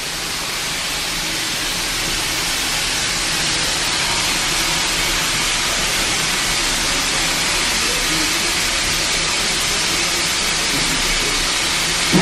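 Steady loud hiss of steam escaping from the train standing at the platform, building over the first couple of seconds and then holding even.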